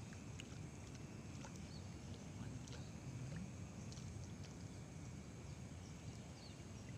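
Faint outdoor ambience by a pond: a steady low rumble and hiss, like wind on the microphone, with a few faint short chirps and small ticks scattered through.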